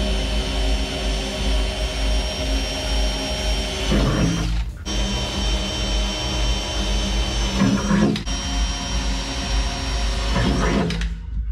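Cordless drill motor running with a steady high whine as it drills into an aluminium dash panel. The sound cuts out briefly about halfway through and again near the end.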